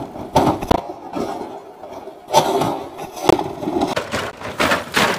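Riderless scooter tumbling and sliding down a steep, stony slope: a string of irregular crashes and scrapes as its plastic body panels and metal frame hit rocks and gravel.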